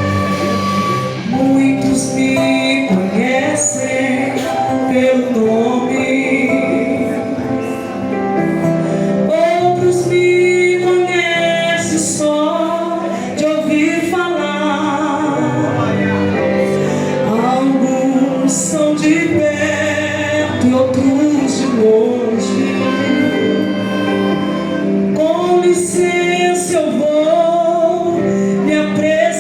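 Gospel song: a singing voice, mostly female, over sustained instrumental accompaniment.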